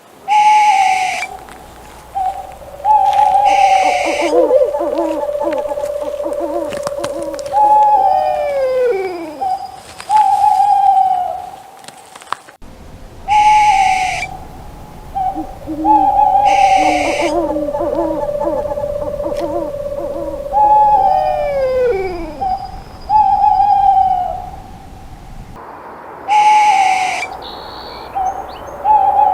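Owl hooting: short hoots that fall in pitch, repeated at intervals, with a longer steady hoot and some calls that slide downward. The same sequence of calls repeats twice, cutting in abruptly each time.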